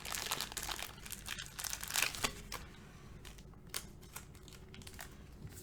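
Plastic penny sleeve crinkling as a thick trading card is worked into it, busiest in the first couple of seconds and then dropping to scattered small clicks and rustles.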